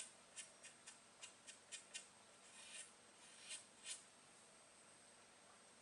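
Faint, short high-pitched scrapes, about ten in four seconds and irregularly spaced, a couple of them slightly drawn out. Then near silence.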